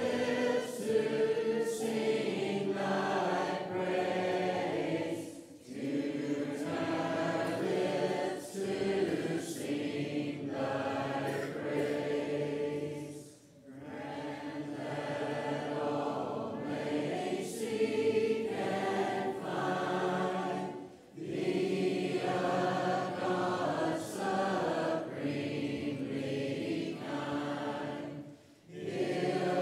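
Church congregation singing a hymn a cappella, with short pauses between lines every few seconds.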